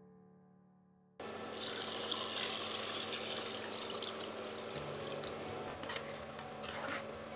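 Water poured from a jug into an aluminium pressure cooker of chicken and masala: a steady splashing pour that starts abruptly about a second in. Near the end, a ladle scrapes and knocks as it stirs.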